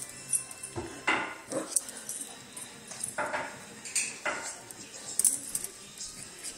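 Pomeranian puppy tugging and shaking a rope toy on a hard floor: scattered light clicks and clinks from the scuffle, with a few short louder scuffs about a second in and again about three seconds in.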